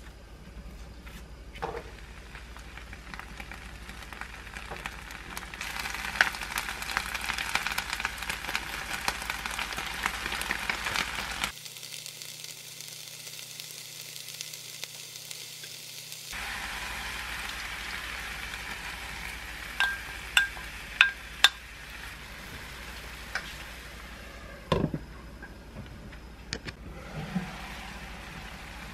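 Vegetables and tofu sizzling in a frying pan on a gas hob, loudest from about six seconds in and briefly dropping away in the middle. A few sharp clinks of a utensil or lid on the pan come later, then a single knock.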